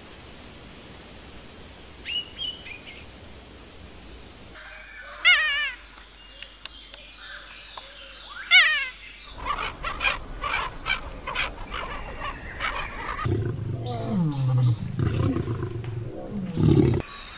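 A string of wild animal sounds. A faint hiss with a few chirps comes first. Then a black-crested bulbul gives two loud calls about three seconds apart, followed by a stretch of rapid calls. Near the end a lion growls low.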